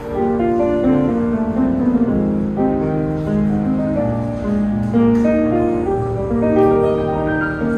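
Piano music: a steady run of melody notes over held chords.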